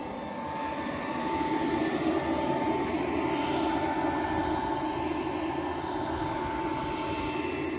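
John Deere 7R310 tractor running in place with the 1770NT planter's hydraulic vacuum fan spinning: a steady engine drone under a constant high whine, a little louder from about a second in.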